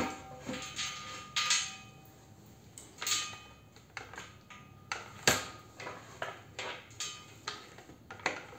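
Scattered light metallic clicks and clinks at an irregular pace, the sharpest about five seconds in, from handling the steel tube and swarf at the drill press.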